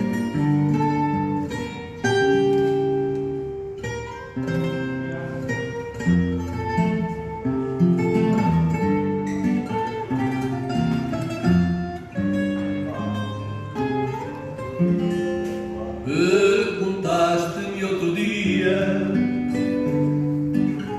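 Fado music on plucked guitars, a run of bright picked notes over a lower accompaniment. A voice joins in singing from about sixteen seconds in.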